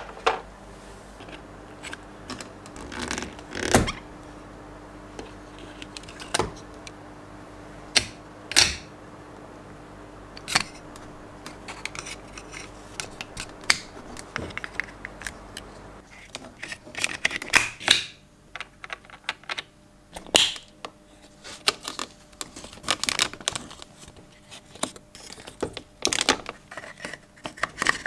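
Irregular clicks, taps and light rustles of hands handling a 1/6-scale collectible action figure and its parts, busier in the second half.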